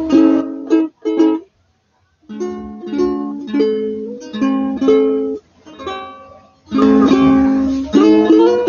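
Ukulele strummed in chords, the notes changing from chord to chord. It stops briefly about a second and a half in, then the strumming picks up again.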